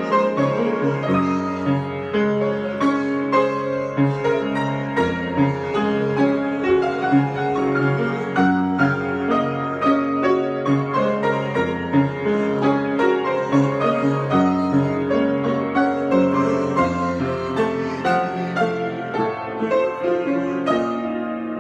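Solo piano improvisation: a continuous flow of notes over low bass notes that change every second or two, growing softer near the end.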